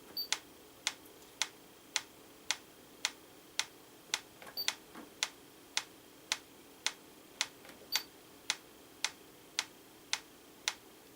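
Franz FB-4 electric metronome ticking steadily, just under two sharp clicks a second. It is running at 112 beats per minute, calibrated to about 540 milliseconds between ticks.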